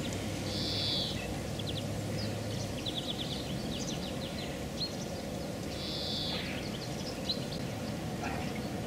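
Songbirds singing in spring trees: a short bright phrase repeated twice, about five seconds apart, with quick chirps and trills in between, over a steady outdoor background noise.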